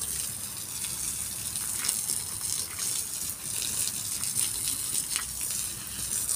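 Water from a garden hose spraying in a steady gushing stream onto grass and soil, with short splashes throughout.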